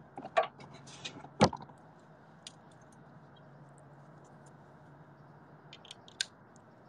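A few sharp small clicks and clinks of hand tools and loose bolts being handled, the loudest about a second and a half in, then only scattered faint ticks over a low steady hum.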